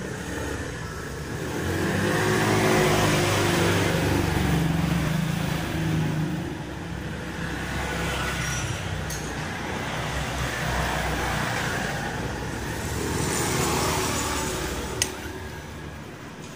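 Automatic scooter engine and CVT running, with the throttle opened and eased off twice. A sharp click near the end.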